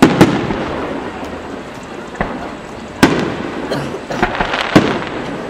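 Aerial firework shells bursting: a quick pair of sharp bangs at the start, more bangs about two, three and nearly five seconds in, with crackling and rumbling in between.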